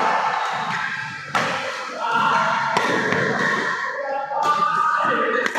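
Badminton rackets striking a shuttlecock during a rally: several sharp hits about a second apart, with voices in the background.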